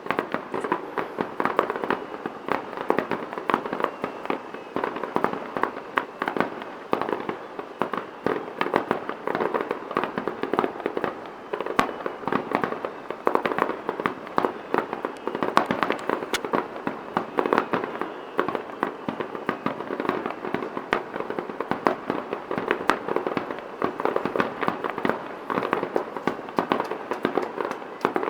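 Fireworks going off in a dense, continuous barrage of rapid crackles and sharp pops with no pause.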